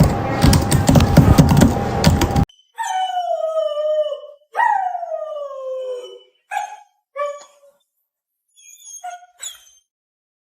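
A loud, noisy clatter for the first couple of seconds, then a dog howling: two long calls that fall in pitch, followed by four short yelps.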